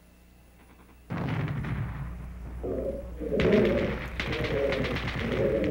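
Near silence for about a second, then a steady hiss with a low hum comes in. From about halfway in, a run of low cooing calls repeats roughly twice a second.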